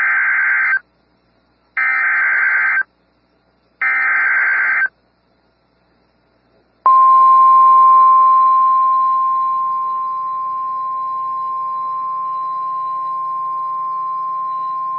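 Emergency Alert System SAME header: three one-second bursts of buzzy warbling digital data about a second apart. After a short pause comes the steady single-pitched weather radio warning alarm tone, a little louder for its first few seconds and then holding steady.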